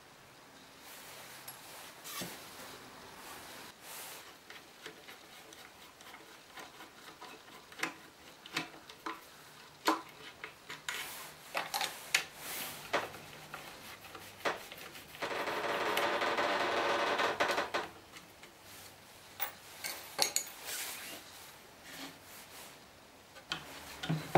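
Hand disassembly of an ash-veneer chipboard cabinet: scattered clicks and knocks of screws, a screwdriver and the wooden panels on the workbench, with a steady scraping rasp lasting about two and a half seconds past the middle as the screwdriver works at the cabinet's corner.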